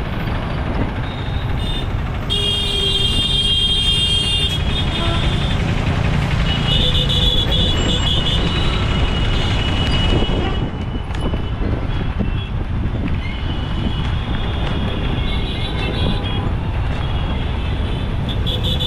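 City road traffic heard from a moving bicycle: a steady rumble of passing vehicles and wind, with vehicle horns honking three times, a couple of seconds in, around the middle and near the end.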